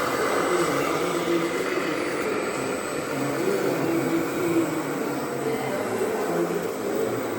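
Radio-controlled model truck running, a steady motor whir with a pitch that wavers up and down.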